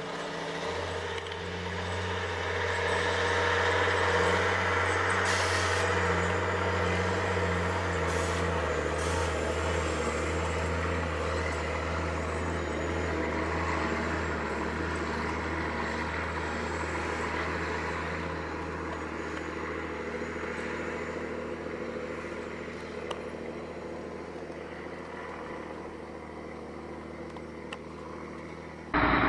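Diesel engine of a heavily loaded log truck running hard under load, a steady low drone that grows louder over the first few seconds, then holds and eases off slightly near the end. A few brief hisses come about five to nine seconds in.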